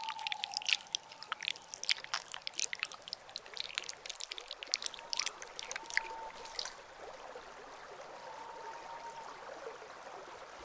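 Stream sound effect: water trickling with many small drips and splashes for the first six or so seconds, then settling into an even, gentle flow.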